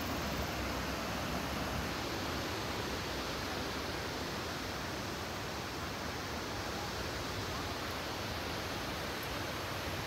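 Harajiri Falls' waterfall rushing: a steady, even hiss of falling water that holds at one level throughout, with nothing else standing out.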